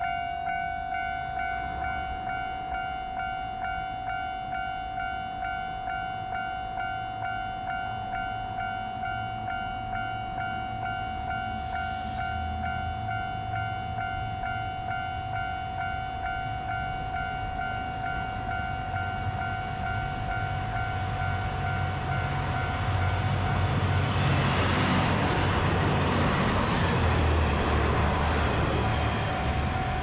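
Japanese level-crossing bell ringing its repeated electronic 'kan-kan' tone. From about twenty seconds in, the rumble of an approaching diesel railcar builds and becomes louder than the bell near the end, as the train reaches the crossing.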